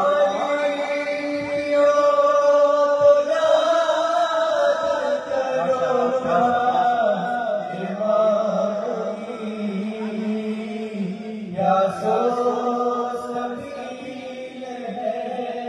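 Male voices chanting a noha, a Shia mourning lament, in long held melodic lines without instruments; a new phrase comes in loudly about twelve seconds in.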